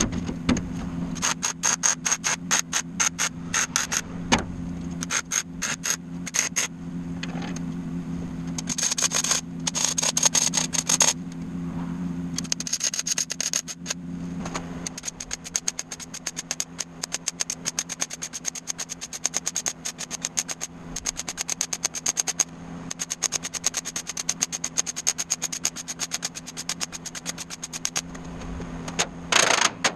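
Welding and grinding on the steel panels of a vehicle frame, heard as a rapid stream of crackling clicks over a steady hum.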